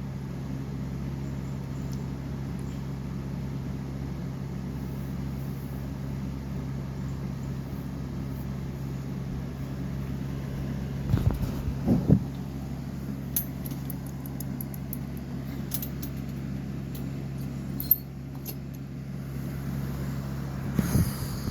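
A steady low mechanical hum, like a fan or air conditioner running. A few knocks and rustles of handling come about eleven to twelve seconds in, with another bump near the end.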